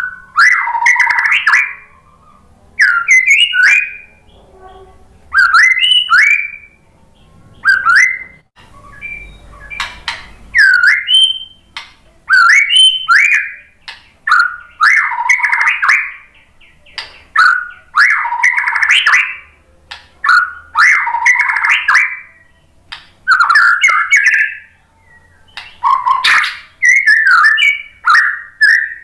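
White-rumped shama (murai batu) singing in loud, separate phrases about every two seconds, mixing clear gliding whistles with rapid chattering runs and high sharp notes.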